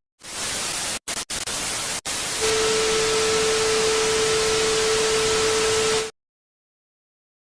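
Static hiss sound effect, cut out briefly three times in its first two seconds. A steady beep tone joins it about two and a half seconds in, and both stop abruptly about six seconds in, leaving silence.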